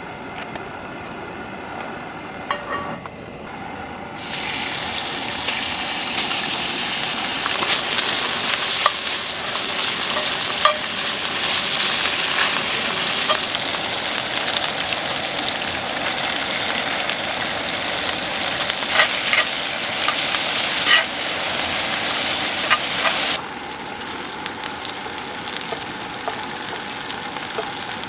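Food sizzling in a hot pan: a loud frying hiss starts suddenly about four seconds in, as if ingredients were dropped into the oil, with scattered clicks of a utensil stirring against the pan. Near the end the sizzle drops away to a quieter hiss.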